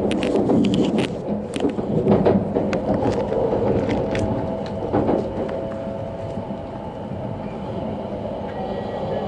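Running noise inside an E5 series Shinkansen car: a steady rumble of wheels on rail. Sharp clicks and knocks come often over the first five seconds, then the sound settles into a quieter, smoother hum.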